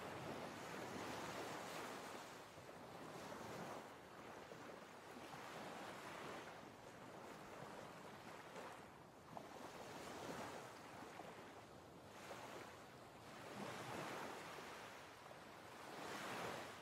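Ocean surf ambience: waves washing in and drawing back, a soft rushing that swells and fades every two to four seconds.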